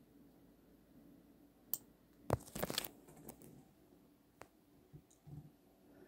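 Faint crunching of dry forest litter and twigs, with a few sharp clicks scattered through and a louder run of crunches about two and a half seconds in.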